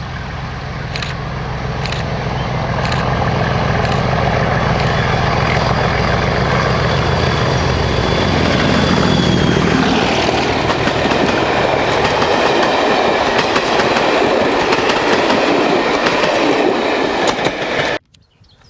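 Diesel locomotive hauling passenger coaches past at speed. The engine note grows louder as it approaches and peaks as it passes about nine seconds in. The coaches follow, rumbling and clattering over the rails, until the sound cuts off abruptly near the end.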